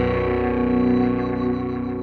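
Outro music: a held distorted electric guitar chord ringing on and slowly fading out.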